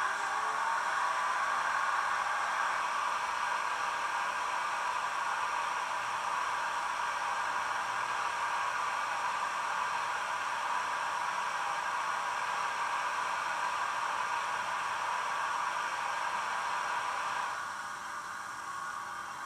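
Air compressor sound sample of an SBB Re 460 electric locomotive, played by the model's Zimo sound decoder through its small loudspeaker: a steady noisy running sound that cuts off abruptly near the end, leaving a quieter steady background.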